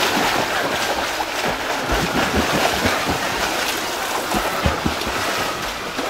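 Swimmers' freestyle strokes splashing and churning the water in a pool race, a steady wash of splashing with low wind rumble on the microphone.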